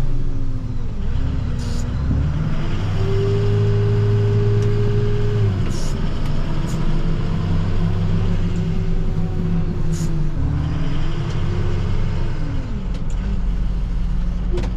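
Plow truck's engine running under way, its pitch dropping and climbing several times as the truck slows, accelerates and shifts gears. A few sharp clicks come through about two, six and ten seconds in.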